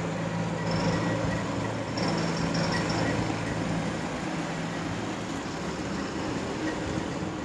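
Road traffic: a heavy vehicle's engine running steadily with tyre and road noise, its drone fading briefly about a second in and returning.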